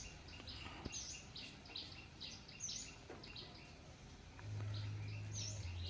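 Small birds chirping repeatedly, short high chirps a little over once a second. A low steady hum comes in about four seconds in.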